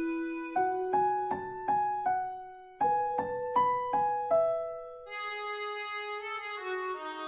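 Background piano music: two short phrases of single struck notes that ring and fade, then held, fuller keyboard chords from about five seconds in.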